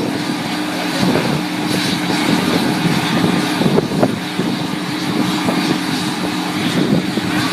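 Two General Electric CF34 turbofan engines of a Bombardier CRJ-200 idling steadily after start-up: a constant low hum with a high whine over it.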